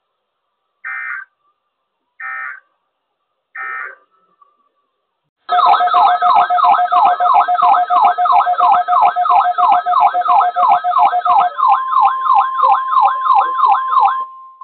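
Three short bursts of weather-radio SAME digital data tones, the end-of-message code after the test. Then a loud electronic alarm warbling rapidly up and down, about three or four sweeps a second. Near the end a steady tone joins it, the weather radio's 1050 Hz warning alarm tone.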